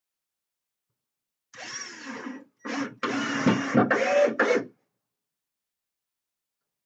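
Cordless drill driving a screw into wooden floor blocking: a softer run of about a second, a short blip, then a louder run of nearly two seconds whose pitch wavers as the screw bites, stopping suddenly.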